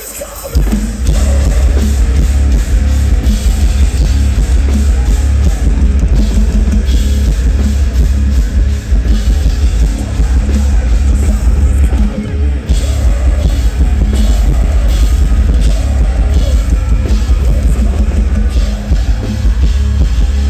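Live metalcore band playing loudly with drum kit, guitars and bass. The full band comes in hard about half a second in, after a brief quieter moment.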